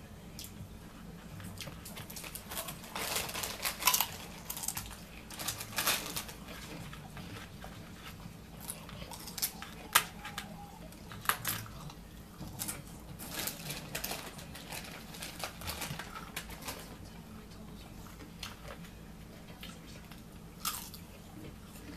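Crunching and chewing of potato chips, heard as irregular clicks and crackles, over a faint steady hum.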